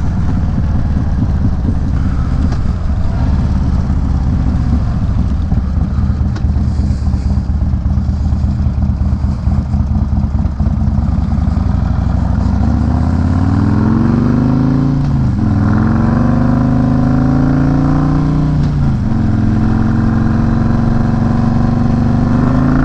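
Harley-Davidson bagger's V-twin engine and exhaust, heard from the rider's seat. It runs as a low, uneven rumble at low revs through the first half. It then pulls away with the pitch rising, drops at two upshifts a few seconds apart, and settles into a steady cruise near the end.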